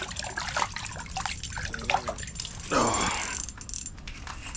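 Water splashing and dripping in an ice-fishing hole as a fish is pulled out by hand, with many small clicks and knocks.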